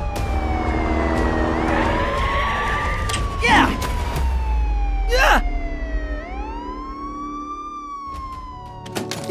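Police car siren wailing in slow rising and falling sweeps over a low steady rumble. Two short swishing noises cut across it about three and a half and five seconds in.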